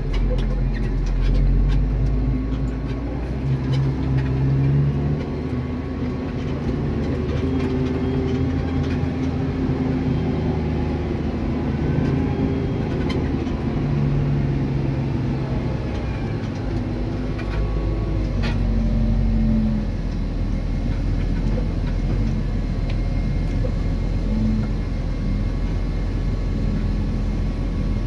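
Diesel engines of a New Holland tractor and a New Holland CR9090 combine harvester running steadily at work, heard from inside the tractor's cab: a constant low drone with engine notes that shift a little in pitch.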